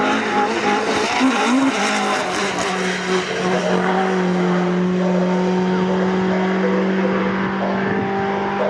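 Racing pickup trucks' engines running at high revs as they race past, several at once. About three and a half seconds in, one engine note settles and holds steady for most of the rest.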